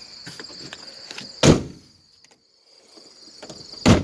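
Two loud, heavy thumps about two and a half seconds apart, over a steady chorus of crickets.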